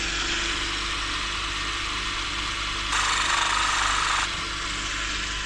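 Cylinder boring bar's motor running, spinning its diamond dressing wheel with a steady hum. From about three seconds in, a louder grinding hiss lasts just over a second as the boring cutter's blunted blade is touched across the wheel to redress one of its angles.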